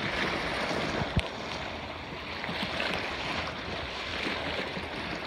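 Sea waves washing steadily, with wind buffeting the microphone; a single short knock about a second in.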